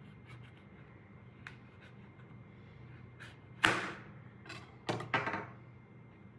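Knife cutting open the crisp rind of a passion fruit: one sharp crack a little past halfway, then two more crunching cuts close together about a second later.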